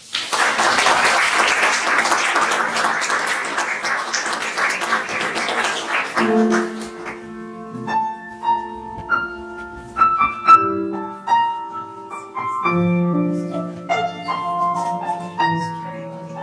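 Audience applauding for about six seconds, then a piano starts playing a slow melody of single sustained notes and chords.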